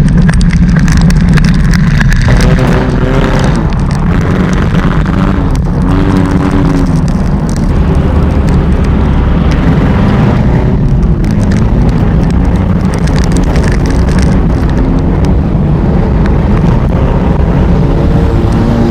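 Enduro race car engine running loud and continuous, its pitch rising and falling a few times as it revs.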